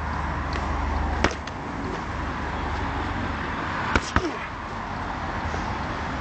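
Bare fists striking a hanging speed ball: one sharp smack about a second in, then two more in quick succession around four seconds in.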